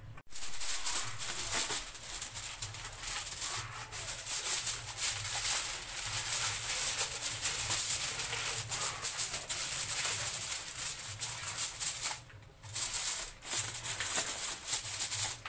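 Aluminium foil crinkling and rustling as it is folded and pressed down around the rim of a disposable aluminium tray, with a short break about twelve seconds in.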